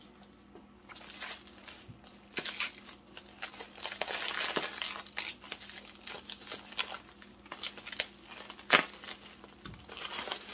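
Wrapping crinkling and rustling as a packed piece is unwrapped by hand, with one sharp knock near the end.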